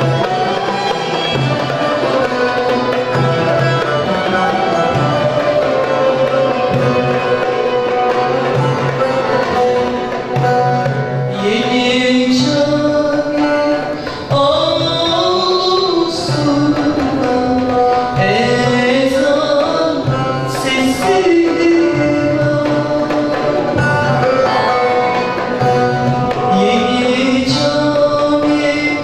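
Live Turkish music ensemble: plucked ouds over a steady frame-drum beat play an instrumental passage. From about eleven seconds in, a woman sings a solo melody over them.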